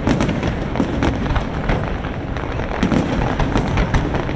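Fireworks display: a rapid, continuous barrage of bangs and crackles from exploding aerial shells, several per second.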